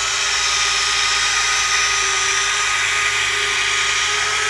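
Servoless 90-degree rotating metal screw retracts of a 2000 mm P-40E Warhawk foam RC plane, their electric motors driving the main landing gear up: a steady drill-like whine. The gear is closing properly.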